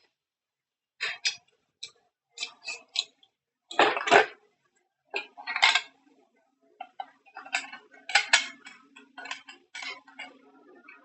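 Hard clicks and clattering knocks as a rebuilt cordless impact-driver battery pack is handled and fitted in place, with a faint low hum starting about five seconds in.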